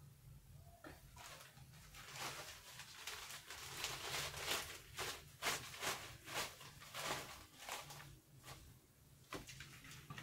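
Thin black plastic bag rustling and crinkling as it is handled, a dense run of short crackles that thins out near the end.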